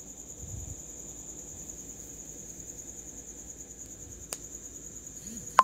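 A cricket chirping steadily in a fast, even high-pitched trill. A faint click about four seconds in and a short, sharp, louder click near the end.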